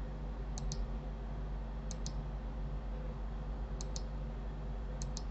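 Computer mouse clicking four times, each click a quick double snap of button press and release, over a low steady hum.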